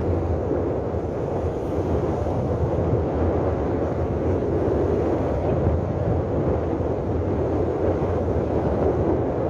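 Steady rush of wind over the microphone of a paraglider in flight, an even noise with no breaks.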